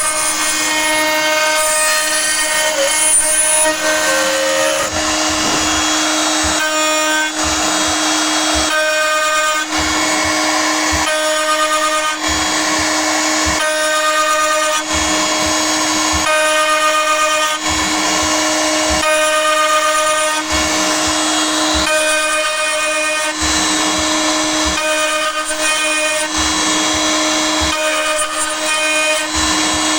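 CNC router spindle at 19,000 RPM with a 5 mm two-flute carbide endmill milling mild steel: a steady spindle tone under a loud, high-pitched cutting screech that changes every second or so as the adaptive toolpath moves the cutter into and out of the steel.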